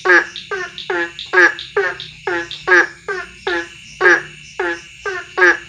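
Frogs calling: a loud, unbroken run of short croaks, a little over two a second, each note bending downward in pitch.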